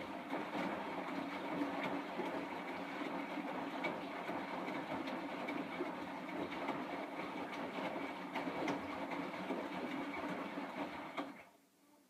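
Bosch WAY32742 front-loading washing machine tumbling its wet load during the wash: drum motor running, with water sloshing and splashing in the turning drum. The sound stops about eleven seconds in as the drum comes to rest.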